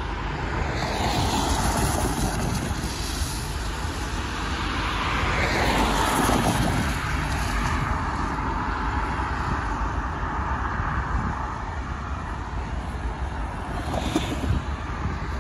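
Cars passing on a rain-soaked road, tyres hissing on the wet pavement, over a steady low rumble. The sound swells twice as vehicles go by, with a brief sharper splash of noise near the end.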